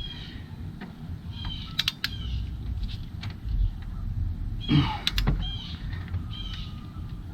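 A few sharp metallic clicks and knocks of hand tools as a cam phaser bolt on a 3.6L V6 is torqued down with a click-type torque wrench. A steady low hum and several short high chirps run under them.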